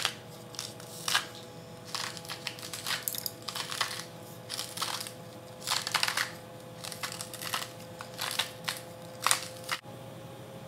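Hand-turned spice mill grinding seasoning in a long series of short, irregular bursts, over a steady faint hum. The grinding cuts off abruptly near the end.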